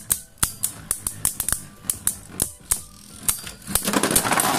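Spinning Beyblade tops clashing in a plastic stadium: a quick series of sharp plastic clicks as they collide. Near the end there is a dense rattle as one top bursts apart and its pieces skitter across the stadium floor.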